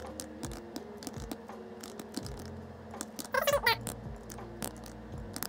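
Computer keyboard typing: quick, irregular key clicks. About three and a half seconds in, a short, wavering, high-pitched cry rises over the clicks.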